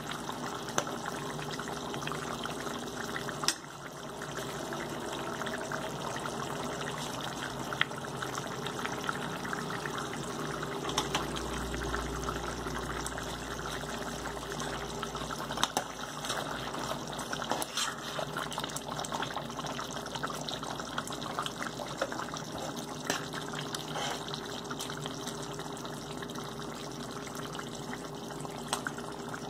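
Thick chicken curry bubbling as it simmers in a metal pot, with a metal ladle stirring it and clicking against the pot now and then.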